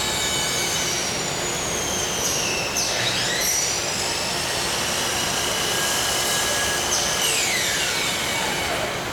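Motor whines from shop power tools over steady workshop noise. The whines sweep in pitch: one falls sharply and climbs back about three seconds in, and another falls steadily over about two seconds near the end.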